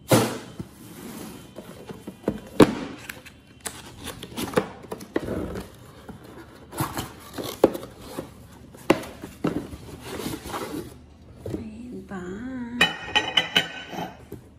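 Cardboard gift boxes of Christmas plates being handled and opened: flaps and lids scraping and rustling, with repeated knocks as the boxes are moved and set on the table, the sharpest about two and a half seconds in. Near the end a quick run of clicks comes after a brief wavering voice-like sound.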